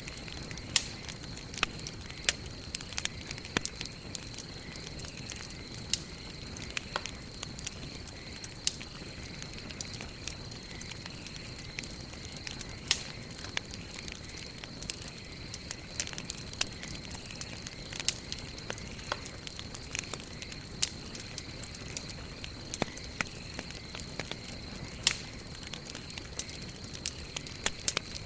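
Campfire of burning wood crackling: frequent sharp, irregular pops and snaps over a soft steady hiss of the flames, with a faint steady high-pitched tone underneath.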